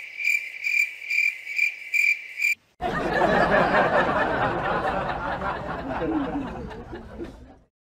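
Cricket chirping: a steady, high, pulsing chirp about three times a second that cuts off abruptly about two and a half seconds in. It is followed by a few seconds of dense, muffled noise with faint voice-like sounds, fading out near the end.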